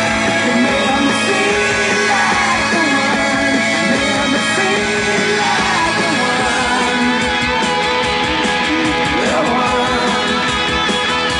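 Rock music with singing and guitar, playing loud and steady as the soundtrack to a fireworks display.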